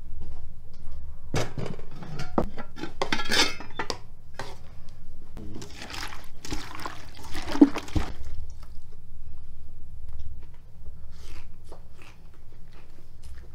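Food being served and mixed by hand. A bowl scrapes and clinks as it scoops steamed rice from an aluminium pot onto plates, and a hand squishes through wet shredded beet-and-cabbage salad in an enamel bucket. Scattered clinks and rustles come over a steady low hum, with one sharp knock about two thirds of the way through.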